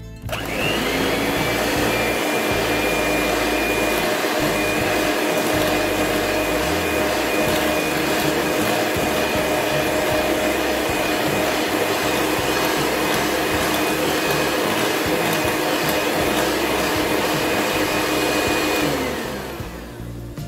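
Electric hand mixer with twin wire beaters running steadily, beating softened butter into whipped eggs and sugar in a glass bowl. Its motor whine rises as it switches on just after the start and falls away as it switches off near the end.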